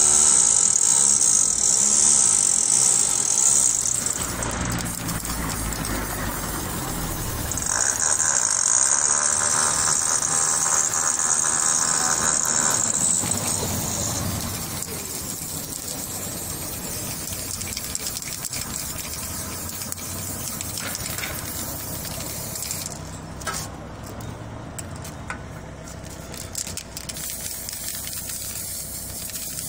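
Aerosol spray can hissing onto a bicycle frame in two long bursts: the first lasts about four seconds, and a second, louder one runs from about eight to thirteen seconds in. Quieter handling clicks follow.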